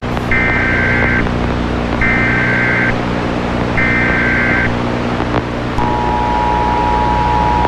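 Emergency Alert System tones: three one-second bursts of the shrill SAME digital data header, a second apart, followed by the two-tone attention signal held for about two seconds. All of it sits over a steady low hum.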